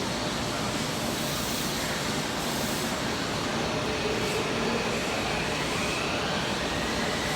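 Toei Mita Line subway train at the platform, a steady running rumble with a faint motor whine that shifts in pitch midway.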